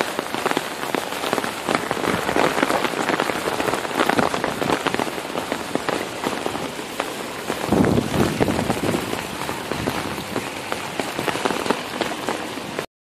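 Heavy hurricane rain falling on pavement and wet ground: a dense, steady hiss of countless drop impacts. A louder low rush comes about eight seconds in, and the sound cuts off abruptly near the end.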